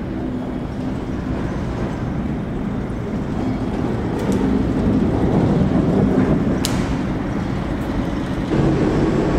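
Class 84 electric locomotive rolling slowly on rails, being moved in from behind, with a steady rumble of wheels and running gear that grows louder as it nears. A single brief, sharp metallic sound rings out about two-thirds of the way through.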